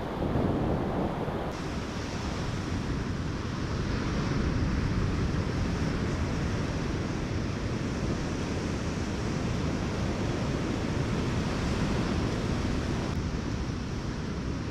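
Ocean surf washing steadily onto the beach, with wind rumbling on the microphone. The sound changes abruptly about a second and a half in and again near the end.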